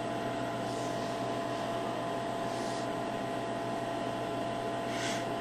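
Steady hiss with a low electrical hum, the room tone of the recording, with three faint, brief soft swishes.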